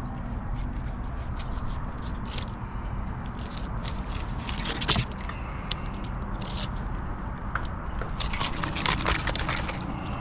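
Irregular scraping and sharp clicking over a steady low rumble.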